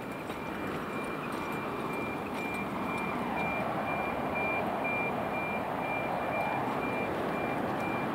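A high electronic beep repeating evenly, a little over twice a second, over steady city traffic noise that grows somewhat louder.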